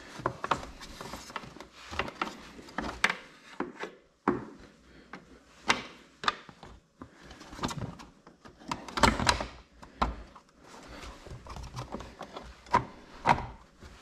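Plastic side plate being handled and fitted onto a trolling motor's composite quick-release bracket: irregular knocks, clicks and rubbing. The loudest knocks come about nine seconds in and again near the end.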